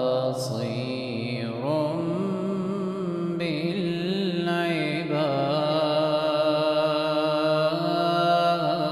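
A man's voice chanting a slow Arabic religious line in long, drawn-out, ornamented notes. Other voices hold steady notes beneath it.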